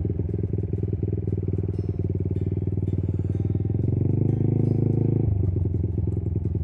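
Honda Monkey's single-cylinder four-stroke engine running at low revs while the bike rolls slowly, getting louder for about a second past the middle and then dropping back suddenly.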